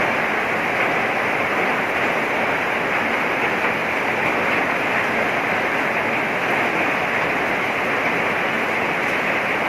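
Heavy rain falling: a steady, dense hiss that does not let up.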